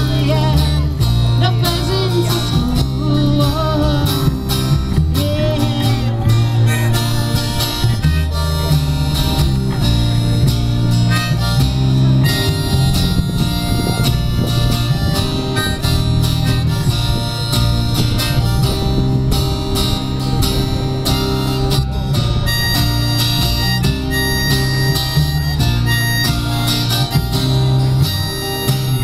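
Live acoustic folk-blues trio music: a harmonica plays the melody over a strummed acoustic guitar and a plucked double bass.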